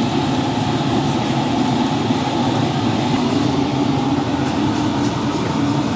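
Steady, dense background noise of a crowded street market, a continuous hubbub with no single sound standing out.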